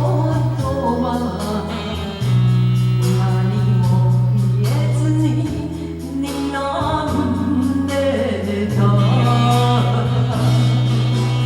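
A song sung over a karaoke backing track, with a bass line holding each note for about two seconds beneath the melody.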